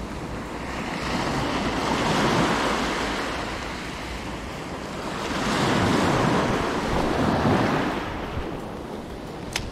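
Small sea waves breaking and washing up a sandy beach, swelling twice, with wind rumbling on the microphone. A single sharp click near the end.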